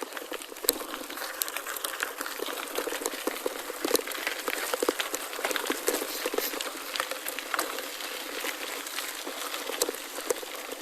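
Gravel bike rolling over a gravel road: a steady crackling hiss of tyres on loose stones, with many small sharp clicks and rattles.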